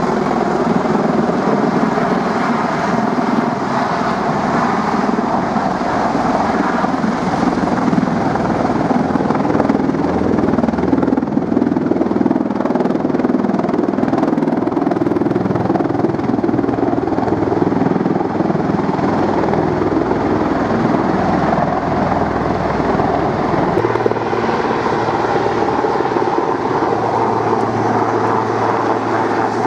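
Bell-Boeing MV-22B Osprey tiltrotor flying low overhead in helicopter mode, proprotors tilted up: loud, steady rotor and turbine noise.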